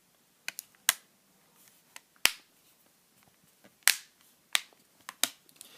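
Plastic back cover of a Samsung Galaxy Note being pressed onto the phone, its clips snapping into place in a string of sharp, irregular clicks.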